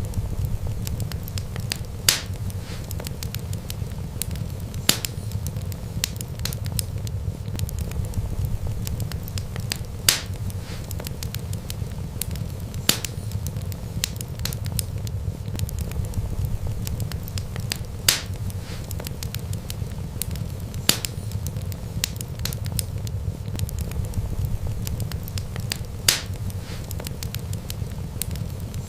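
Wood fire crackling: a steady low rumble of flames with constant small crackles, and a louder sharp pop every few seconds.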